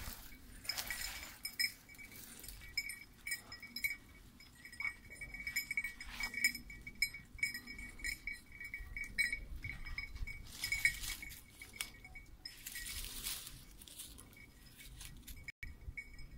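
A hunting dog's bell collar jingling in irregular clusters as the pointer moves through the brush, with a few short bursts of rustling scrub.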